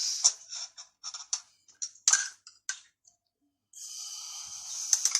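Screwdriver tightening the screws of a gas water heater's water valve: a run of short metallic clicks and scrapes, then a continuous rasp of about a second and a half near the end.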